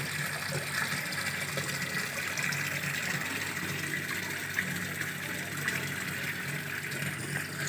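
Zanussi top-load automatic washing machine filling: water jetting from the inlet into the drum in a steady rush, over a faint low hum. It is drawing hot and cold water together at the start of the cycle.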